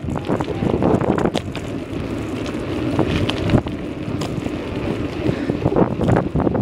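Wind buffeting the microphone of a phone carried on a moving bicycle: a steady rumbling rush, broken by a few sharp knocks and rattles.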